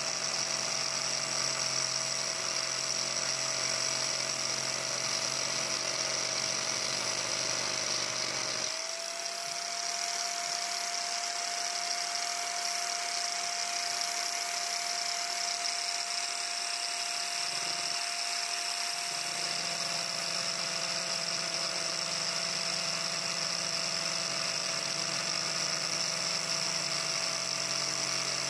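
Handheld electric angle grinder running continuously with its disc carving into a wooden hiking stick: a steady whine over a grinding hiss, the whine stepping slightly up in pitch about nine seconds in.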